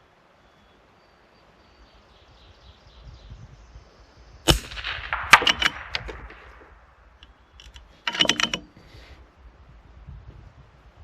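A custom .22 LR benchrest rifle fires one shot about four and a half seconds in. Right after it, and again near eight seconds, comes a quick run of sharp metallic clicks: the bolt being worked to eject the case and chamber the next round.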